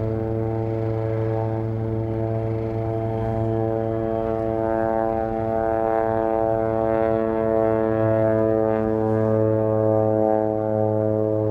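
Air Tractor 402B agricultural plane's 680-horsepower turboprop engine and propeller giving a steady, pitched buzzing drone, growing a little louder in the second half.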